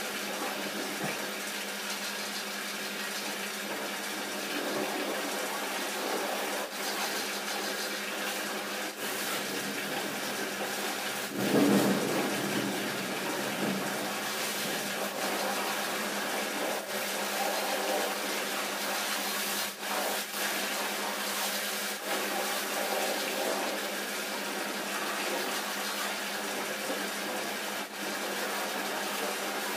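Water spraying from a car-wash hose, a steady rushing hiss with a steady hum underneath. A louder, lower rush swells briefly about twelve seconds in.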